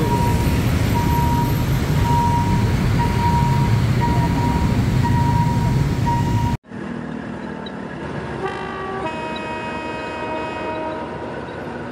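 Motorbike and car traffic running at a railway level crossing, with the crossing's warning signal beeping about twice a second. About six and a half seconds in, the sound cuts off and a short musical jingle follows.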